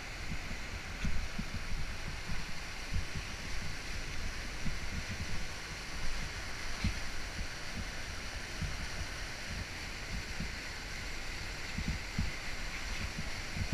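White water rushing steadily through the outflow of a small concrete dam and churning into the river below. Uneven low gusts of wind buffet the microphone throughout.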